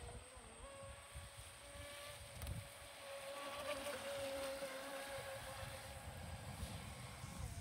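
Radio-controlled speedboat's motor whining at a steady high pitch as the boat runs across the water. The whine is loudest in the middle, as the boat passes closer.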